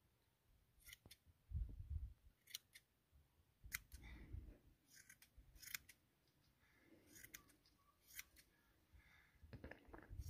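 Hand shears snipping through an animal's long, shaggy coat during shearing: faint, separate snips every second or two, with soft low thumps of handling between them.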